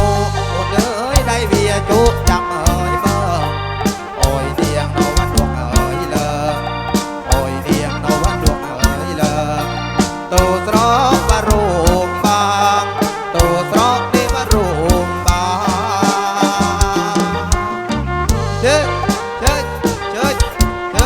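Live kantrum band playing an instrumental passage: a wavering, ornamented lead melody over a steady beat and heavy bass, loud through a PA sound system.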